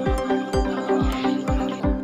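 Background music with a steady kick-drum beat, about two beats a second, under sustained chords.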